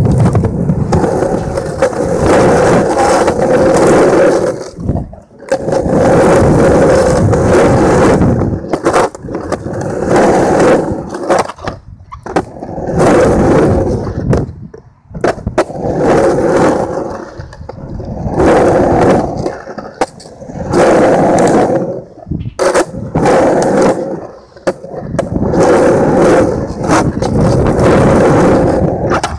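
Skateboard wheels rolling loudly over rough concrete in runs of a few seconds each, broken by short lulls, with a few sharp clicks along the way.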